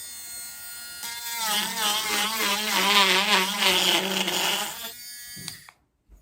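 Mini cordless rotary tool running with a high buzzing whine. For a few seconds in the middle its pitch wavers up and down several times a second, then it steadies and shuts off near the end, followed by a faint click.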